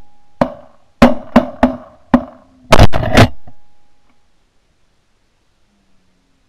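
Shotguns firing a rapid volley of about eight shots at waterfowl overhead, each blast sharp with a short echoing tail.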